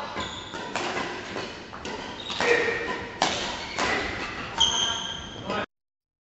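Badminton rally: sharp racket-on-shuttlecock hits every half second to a second, with shoes squeaking on the court floor. The sound cuts out abruptly about a second before the end.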